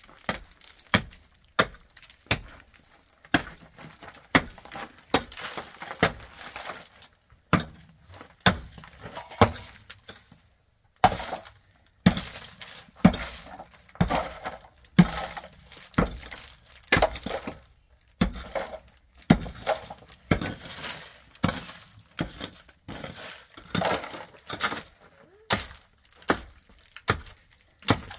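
Repeated sharp blows, roughly one a second, with brief scraping and rattling between them and a short pause about ten seconds in.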